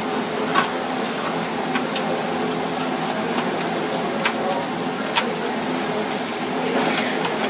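Paper towel rubbing and patting a whole fish dry on a wire rack, with a few sharp clicks, over a steady machine hum.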